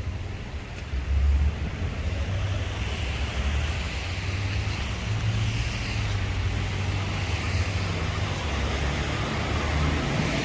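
Road traffic on a wet, slushy street, tyres hissing, with a steady low rumble of wind on the microphone that gusts loudest about a second in.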